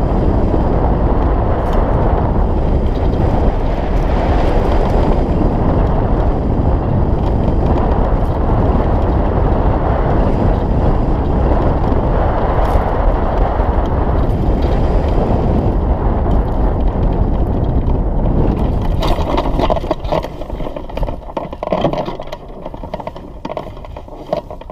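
Wind rushing over the microphone of a camera mounted on a gliding hang glider. The rush dies away about 19 seconds in as the glider slows and lands, leaving fainter, uneven noise.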